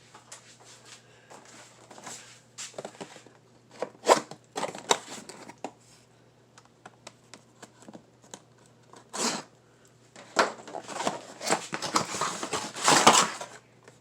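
Razor knife slitting packing tape on a cardboard box, then the box being opened and its packaging rustled, crinkled and torn in scattered clicks and scrapes, loudest and busiest for a few seconds near the end.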